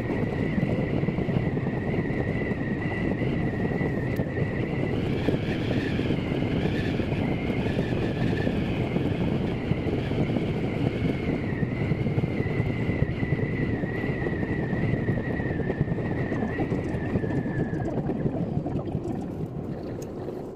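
Electric commuter train running at speed, heard from inside the carriage: a steady rumble of wheels on rail with a high, slightly wavering whine that fades out near the end.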